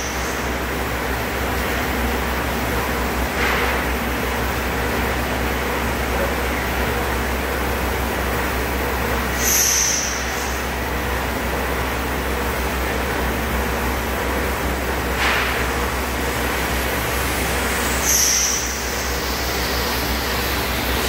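Hydraulic power pack of an 800 mm-stroke hydraulic pusher running steadily, its electric motor and pump giving a constant hum while the cylinders stroke in and out. A short, high hiss breaks through twice, about nine seconds apart.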